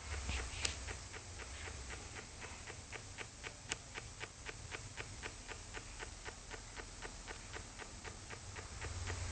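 JBL subwoofer running with a low bass hum and a rattling noise: a steady series of sharp ticks, about five a second. The rattle is the fault that makes the owner consider throwing the sub away.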